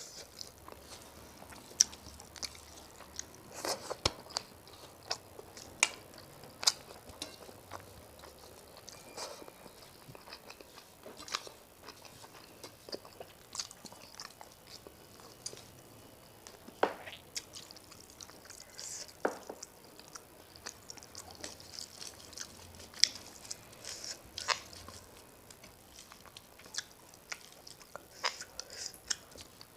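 Close-miked eating: wet chewing and mouth smacks of rice with fish curry and greens, with irregular sharp clicks and small crunches.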